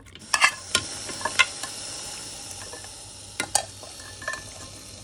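Mutton pieces sizzling as they go into a hot pot, with a spoon knocking and scraping against the pot as they are stirred. The sizzle starts about half a second in and slowly dies down.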